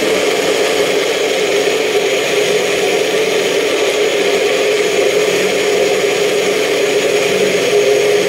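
Bullet-style personal blender motor running steadily under load, grinding beets, carrots, apple, celery and leafy greens into a fine purée. It gives a constant tone over a wide whirr.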